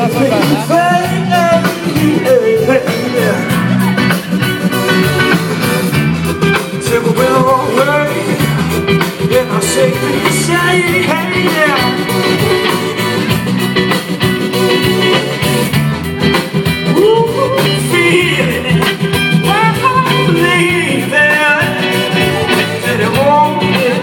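Live band playing through a PA: vocals over guitars, bass, drums and keyboard in a steady, loud groove.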